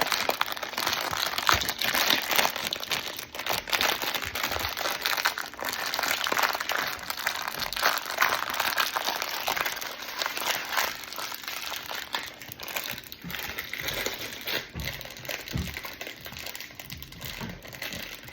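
Plastic toy packaging crinkling and rustling as it is handled and unwrapped, busier in the first half and quieter later.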